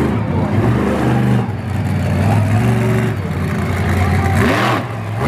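Incinerator monster truck's supercharged V8 engine revving in surges as the truck drives on the track, its pitch rising and falling, with a brief rising whine and noisy rush about four and a half seconds in.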